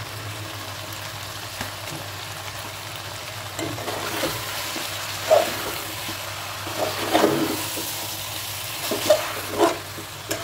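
Steady frying hiss from jackfruit pieces cooking in masala in an aluminium pressure cooker. About four seconds in, a steel spoon starts stirring them, with a run of scrapes and clinks against the pot's sides.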